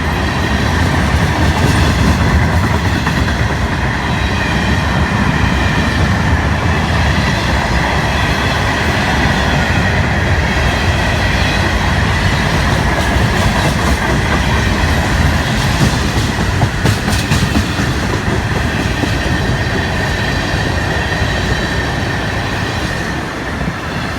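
Train cars rolling steadily past at close range, wheels clattering over the rail joints with a faint steady high squeal from the wheels.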